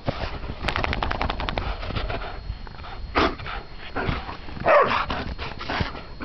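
Greyhounds playing in the snow: a quick run of crunching footfalls about a second in, then scuffling, and a short dog bark or growl about five seconds in.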